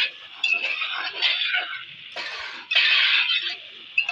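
A spoon stirring rice in sugar syrup in a pot, scraping against the pot in a series of strokes, about four in all.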